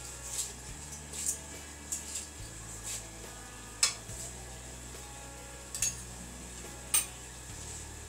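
Metal spoons clinking against steel cooking pots and utensils: a scattering of sharp, separate clinks, the loudest about four seconds in and again near seven seconds.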